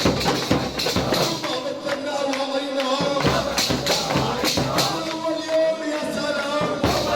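Music with a melody line over regular percussion strokes.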